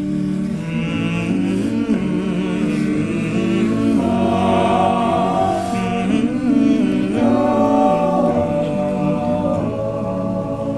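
All-male a cappella group singing the closing held chords of the arrangement in close harmony, the chords shifting a few times.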